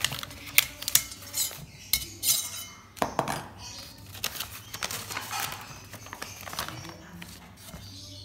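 A metal spoon clinking against a ceramic plate several times, then brown wrapping paper crinkling as it is unfolded, from about three seconds in.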